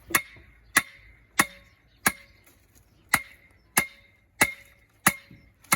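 Sledgehammer driving a new wooden vineyard post into the ground: evenly spaced strikes, about three every two seconds, each with a brief ring.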